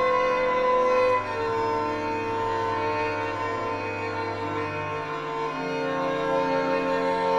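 Church organ playing slow, held chords that change a few times.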